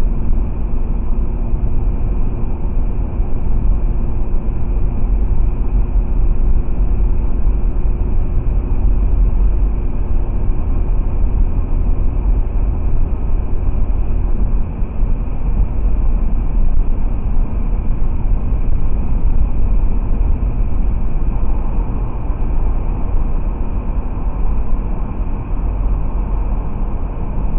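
Cabin road noise of a 2017 Toyota 4Runner cruising at steady highway speed, its 4.0-litre V6 and tyres making a steady low rumble, picked up by a cheap dash cam's built-in microphone.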